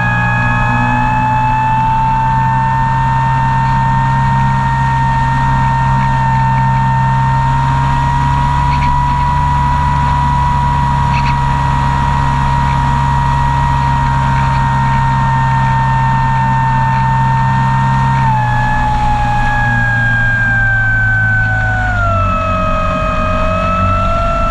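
Model airplane motor and propeller running steadily at cruise power, heard from on board. The pitch steps down about three quarters of the way through and falls further near the end as the throttle comes back and the plane descends.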